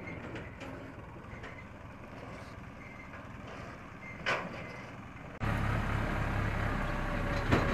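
New Holland tractor's diesel engine running at a steady speed, heard from a distance, with a sharp click about four seconds in. About five seconds in the engine is suddenly much louder, heard close up from the driver's seat as the tractor drives along, with a sharp knock near the end.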